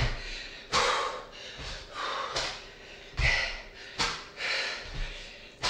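A woman breathing hard through a fast exercise set: short, forceful exhales about once a second, in rhythm with the reps, with a few soft low thuds between them.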